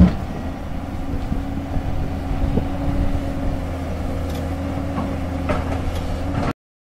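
JCB JS205 tracked excavator's diesel engine running steadily under hydraulic load while it swings a bucket of rocks, with a sharp knock right at the start and a few lighter knocks and clicks later, rock against the steel bucket. The sound cuts off abruptly near the end.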